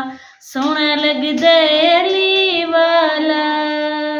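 A woman singing unaccompanied, holding long, gliding notes in a Punjabi devotional song praising Ali. There is a short breath pause just after the start, then a long sung line.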